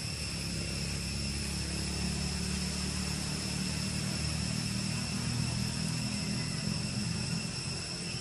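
A low, steady engine rumble that fades near the end, under a steady high-pitched drone of insects.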